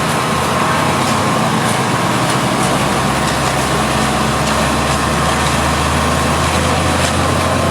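A heavy vehicle's engine running steadily under a constant noise haze, its low hum growing stronger about three seconds in.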